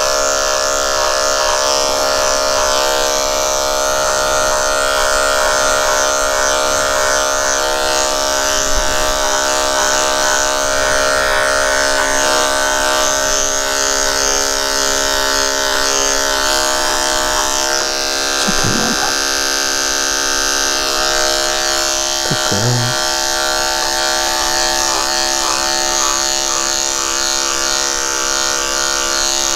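Electric dog grooming clippers running with a steady buzz as they shave down a Bichon Frise's matted coat close to the skin.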